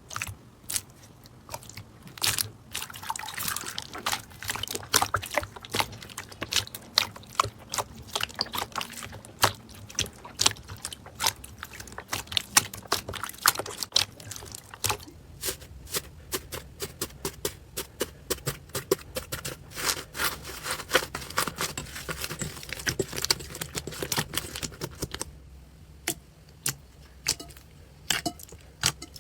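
Slime being squeezed and worked by hand, making a dense, irregular run of wet clicks and pops from trapped air.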